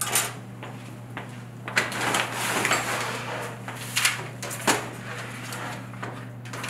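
Handling noises from a long tube-style grow light being unclipped from the frame of a hydroponic tower garden: a click as small clips are set down on a stove top, then rustling and scraping, and two sharp knocks about four and five seconds in. A faint steady hum runs underneath.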